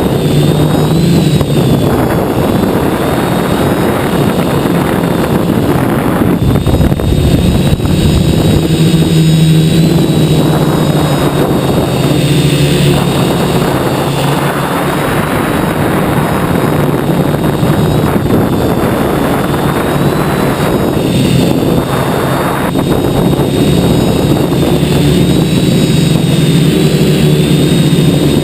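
Quadcopter's DJI 2212 brushless motors and propellers buzzing in flight, with wind noise over the onboard camera's microphone; the pitch and loudness shift up and down with throttle changes.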